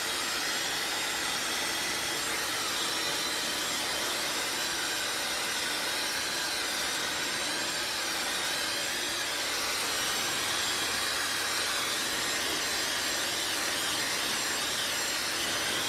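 Handheld hair dryer running steadily: a constant rush of blown air with a faint high whine from its motor.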